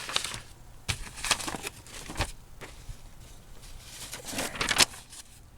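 A sheet of paper rustling and crinkling in short bursts as it is handled and turned over, with a few sharp crackles.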